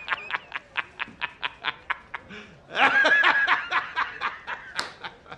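A man laughing heartily in rapid, evenly spaced pulses, about five a second, with a louder stretch of laughter about three seconds in.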